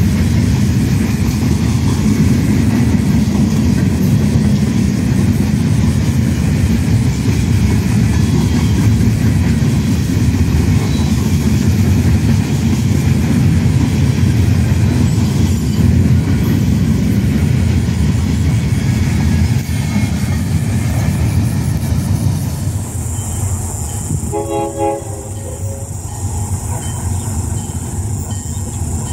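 Loaded freight gondola cars rolling past close by, steel wheels running on the rails with a steady heavy rumble and some clickety-clack. Near the end the rumble drops away, and a short blast from a GP38-2 diesel locomotive's horn sounds.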